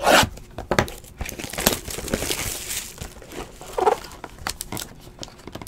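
Packaging crinkling and tearing as a sealed hobby box of football trading cards is opened by hand. A sharp tearing burst comes right at the start, followed by rustling and light clicks of cardboard and wrapper as the contents are pulled out.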